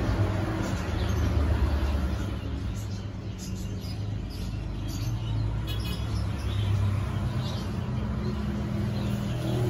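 A low rumbling background noise, with a few faint, short high chirps scattered through the middle.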